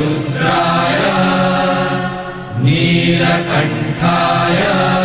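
Voices chanting a Hindu Sanskrit mantra in long, held notes; one phrase ends about two and a half seconds in and the next begins straight after.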